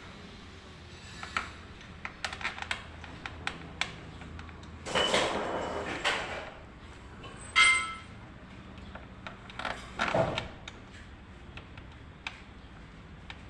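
Hand tools and metal engine parts being handled: a run of light clicks and taps, a rush of noise lasting about a second around five seconds in, one sharp ringing metal clink about halfway through, and another short rush near ten seconds.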